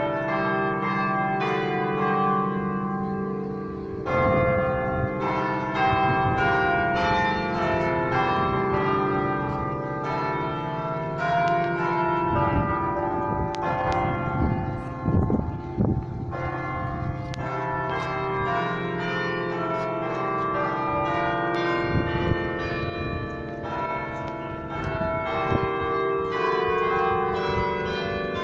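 The 18-bell McConnell carillon playing a tune, its bells struck one after another and each ringing on over the next.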